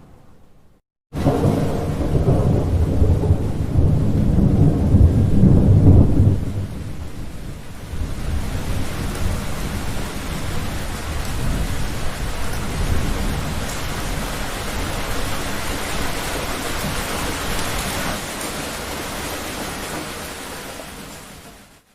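Thunder: a loud low rumble starts suddenly about a second in, swells, and dies away after about six seconds. Steady rain follows, with faint rumbling under it, and fades out near the end.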